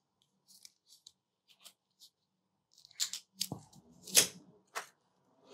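White charging cable being unwound from its coil by hand: a few faint ticks, then several short rustling scrapes from about three seconds in, the loudest just after four seconds.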